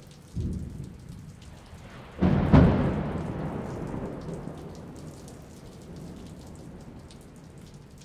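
Steady rain with thunder. A short low rumble comes about half a second in, then a loud thunderclap about two seconds in that rolls on and fades slowly over the next several seconds. Small raindrop ticks sound throughout.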